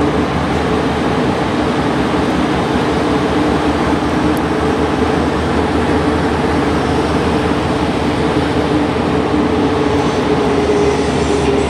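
Alstom NS-93 rubber-tyred metro train running at steady speed through a tunnel, heard from the driver's cab: a steady rumble of running noise with an even two-note hum.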